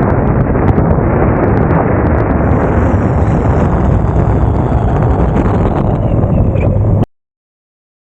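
Wind on the microphone and road rumble from riding an electric skateboard, with a faint high whine joining about two and a half seconds in. The sound cuts off abruptly near the end.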